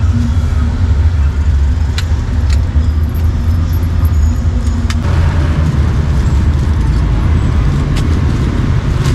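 Steady low rumble of motor traffic close by, with a few sharp clicks about two seconds in and again near the middle.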